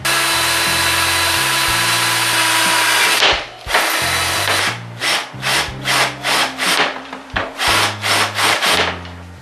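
Cordless drill boring holes in the boat's windscreen frame rail. It runs steadily for about three seconds, then goes in short stop-start bursts, about two a second.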